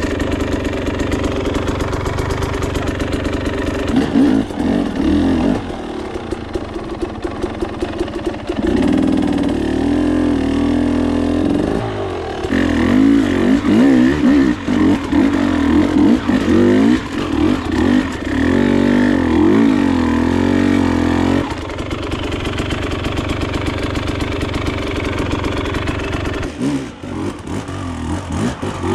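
KTM dirt bike engine running, idling between repeated throttle blips that make the pitch rise and fall, with the longest stretch of revving in the middle.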